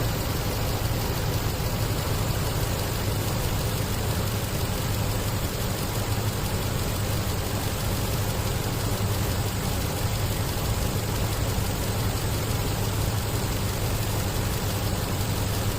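Nissan Armada's 5.6-litre V8 idling steadily, running on a freshly replaced ignition coil on cylinder 8, the cylinder that had been misfiring.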